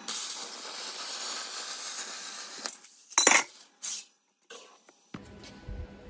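A hand cutter scraped along thin sheet metal, a steady scratching for about three seconds as the sheet is scored. Then the metal clanks sharply twice and rattles as the cut panel is lifted and handled.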